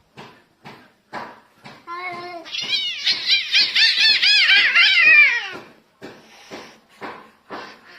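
Cats fighting: a yowl about two seconds in, then a loud run of shrill screeches, about four a second, for some three seconds, which dies away near the sixth second.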